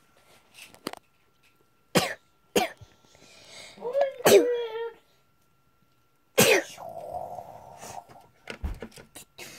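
A person coughing several times and clearing the throat, short separate coughs a second or two apart.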